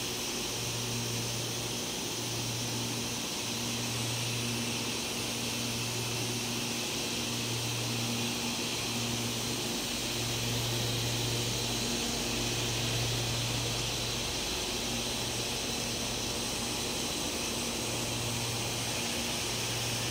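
Steady hiss and hum of industrial machinery running in a plastic sheet extrusion workshop, with a low hum that swells and drops out every second or two.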